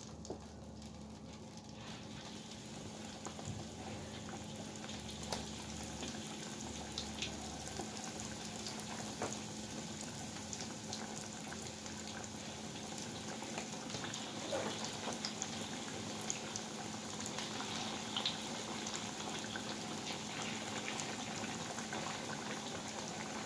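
Breaded risoles deep-frying in hot oil in a wok: a steady bubbling sizzle with scattered crackles and pops, building up over the first couple of seconds as the rolls go into the oil.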